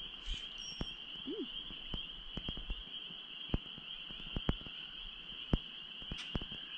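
A steady, high-pitched chorus of frogs calling, with faint scattered clicks.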